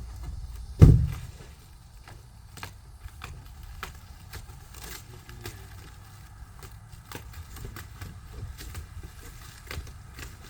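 Handling of a heat pump's shipping box and strapping: one loud thump about a second in, then scattered light clicks and crackles.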